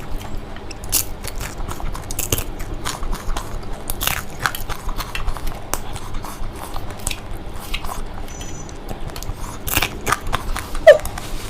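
Close-miked crunching and chewing of crispy fried food, with sharp crackly bites at irregular intervals.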